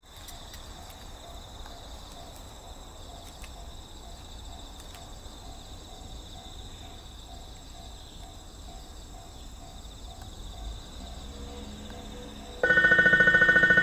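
Insects chirring steadily in the background, then about thirteen seconds in a loud electronic train-approach warning tone starts suddenly at the station, ringing with a fast, even pulse.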